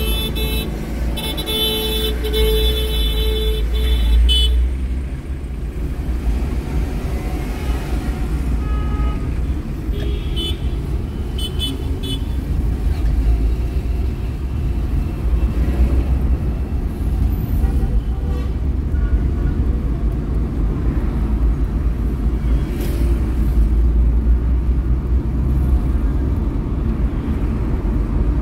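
Car driving through city traffic: a steady low rumble of engine and road, with car horns tooting. A high sustained tone stops about four seconds in, and a few short tones follow around ten seconds in.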